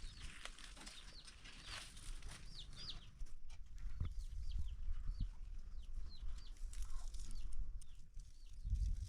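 Birds chirping: many short, high calls, each sliding downward, several a second, over a low rumble with a few dull thuds.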